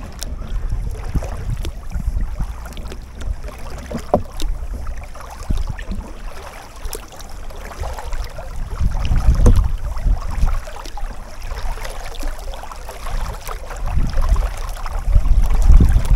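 Paddle strokes driving a Pakayak Bluefin 142 sea kayak through calm river water: blades dipping and pulling, with scattered drips and the light wash of the bow. Low wind rumble on the microphone swells twice, about ten seconds in and again near the end.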